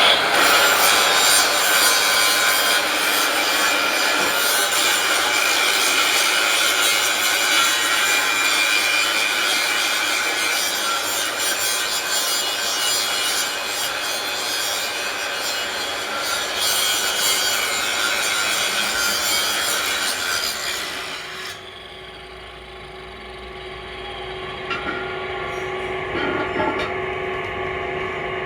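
A power tool grinding or cutting metal, a loud, even rasp that starts suddenly. About twenty seconds in it drops to a quieter run with a faint steady whine, then picks up again at the very end.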